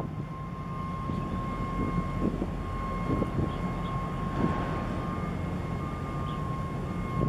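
Steady low engine rumble with a constant high whine over it, from a large container ship and its escort tug under way close by.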